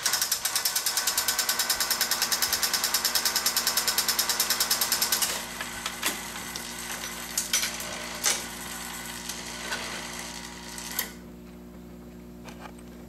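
Wurlitzer 2700 jukebox's record-changing mechanism cycling after a selection is made: a fast, even rattle of about eight clicks a second for about five seconds, then quieter whirring with a few sharp clicks. It settles into a steady hum near the end as the record is set up to play.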